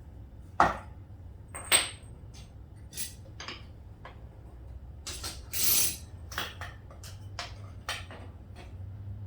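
Metal clinks and knocks of hand tools and fork parts being handled, about a dozen sharp separate hits, one with a short ring, and a brief scraping rush a little past halfway, over a low steady hum.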